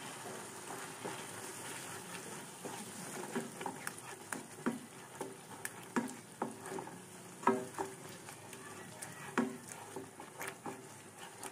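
Wooden spatula stirring and scraping a thick masala paste with yogurt around a kadai, giving irregular scrapes and knocks over a steady low sizzle of frying. The yogurt is being fried into the masala.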